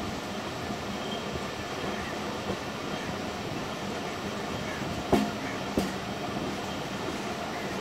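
Hazara Express passenger train running along the track: a steady running noise, broken about five seconds in by two sharp clacks less than a second apart.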